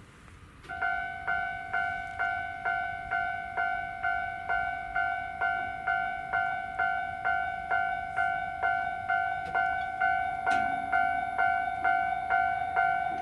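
Japanese railway level-crossing alarm ringing: a clear bell-like electronic tone struck about two and a half times a second, each strike fading before the next. It starts about a second in.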